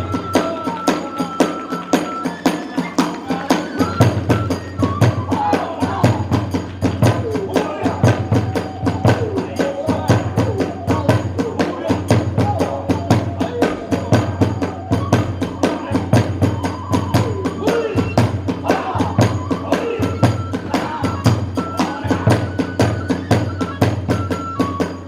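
Kagura hayashi accompaniment: a large drum beating in a steady pulse under a fast, even run of small hand-cymbal strikes, with a high bamboo flute line held at the start and again near the end.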